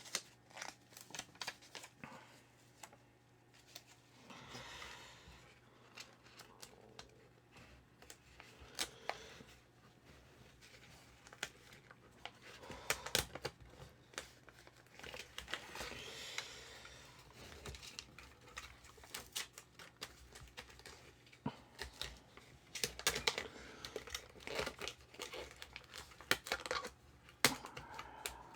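Crinkling, rustling and tearing of model-car carpet pieces and their backing being handled and pressed into place on a scale model's floor pan, with scattered small clicks and taps of parts and tools.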